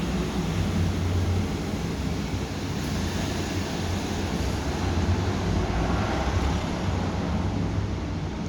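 Steady low droning hum over a constant rushing noise, unchanging throughout.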